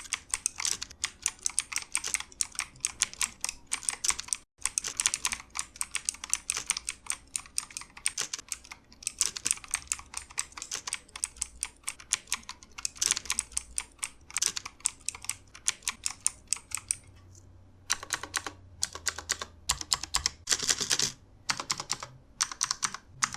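Typing test on a budget K28 TKL mechanical keyboard with clicky blue switches, clones of Cherry MX Blues: fast, continuous clacking keystrokes with a few short pauses. The presses turn sparser and more separate in the last few seconds.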